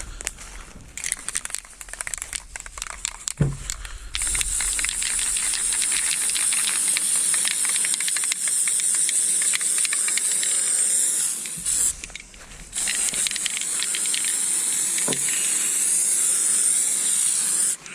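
A few seconds of scattered rattling clicks, then a steady high-pitched hiss that drops out briefly about twelve seconds in and cuts off suddenly near the end.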